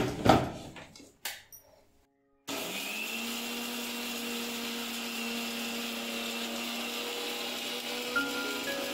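Preethi mixer grinder running steadily, grinding coconut chutney with roasted dried red chillies in its small steel jar while the lid is held down. It starts suddenly about two and a half seconds in, after a few brief knocks.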